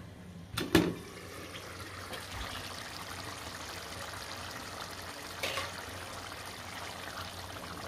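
A glass pot lid knocks and clinks as it is lifted, then a pot of white beans (lobia) in gravy simmers with steady bubbling. About five seconds in, a wooden spoon stirs through the beans with a brief scrape.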